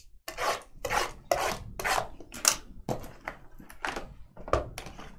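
Sealed cardboard trading-card boxes sliding and scraping against each other and the tabletop as they are shifted: a quick series of short, rasping rubs, roughly two a second.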